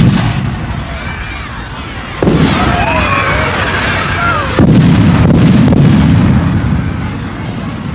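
Fireworks exploding: two loud booms, about two seconds and four and a half seconds in, each followed by a long rumbling decay.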